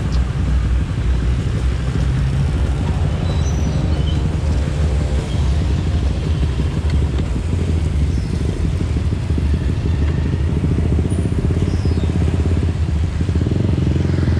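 Yamaha 125Z with a swapped-in Kawasaki Ninja R 150 cc two-stroke single engine running steadily at low revs.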